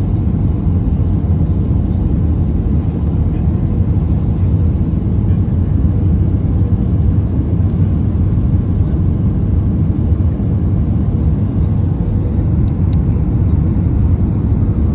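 Steady low rumble of jet engines and rushing air heard inside an airliner cabin on final approach, descending toward the runway just before touchdown.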